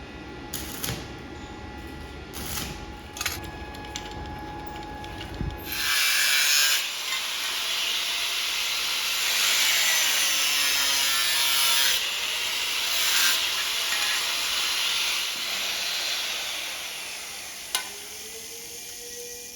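Power tool working steel for the lock fitting: a loud hissing scrape starts about six seconds in, wavers in pitch as it bears on the metal, and stops near the end. Before it come a low rumble and scattered knocks and clicks.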